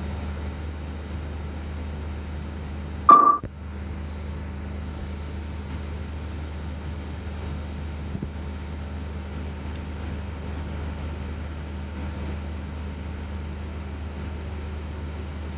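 Masala being fried and stirred in a pot on a stove: a steady low hum with an even hiss. About three seconds in there is one sharp metallic clang with a brief ringing tone, a spoon striking the pot.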